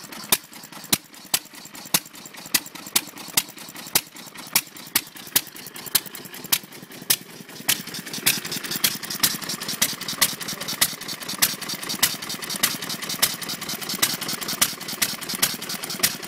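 Mid-1920s Witte hopper-cooled single-cylinder gasoline engine running, with sharp, evenly spaced exhaust pops about two a second. A drill battery and ignition coil supply its spark in place of a faulty magneto. A steady hiss grows louder behind the pops from about halfway through.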